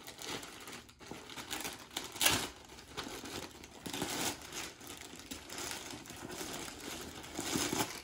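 Clear plastic bag crinkling as it is handled and pulled off a soft stuffed item, with an irregular crackle and a louder rustle a little over two seconds in.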